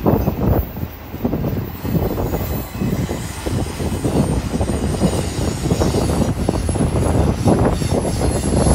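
Double-stack intermodal freight train's well cars rolling past close by: a steady rumble of steel wheels on the rails, dipping briefly twice in the first few seconds.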